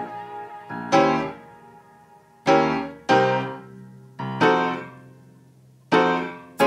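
Background music: slow piano chords, each struck and left to ring out, about one a second.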